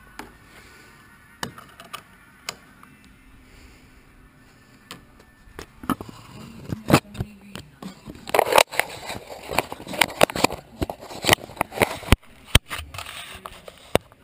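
Handling noise on a GoPro camera in its housing on a tail-fin mount: scattered clicks at first, then from about six seconds in a dense run of knocks, clicks and scraping as the camera is turned and adjusted by hand.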